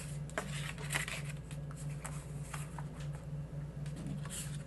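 Paper ephemera cards and vellum pieces rustling and sliding against each other as they are handled one after another, in short irregular strokes, over a steady low hum.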